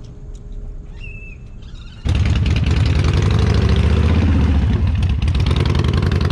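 Motorcycle engine running loud and steady at a low, even pulse, cutting in suddenly about two seconds in after a quiet start.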